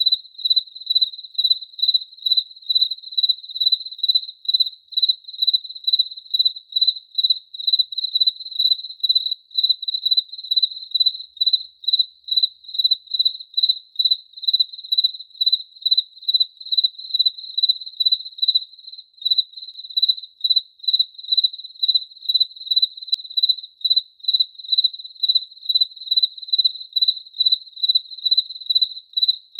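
A cricket chirping in an even, unbroken rhythm, about two high, clear chirps a second.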